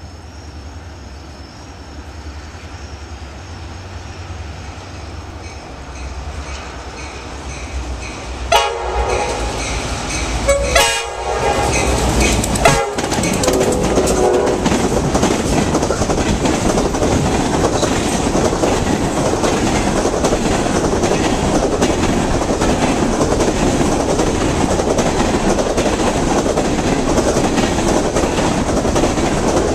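New York & Atlantic Railway locomotive 261 approaches with a low diesel rumble that grows louder. Its air horn sounds a short series of blasts, about eight to thirteen seconds in, as it passes close by. The freight cars then roll past with a steady loud clatter of wheels on rail.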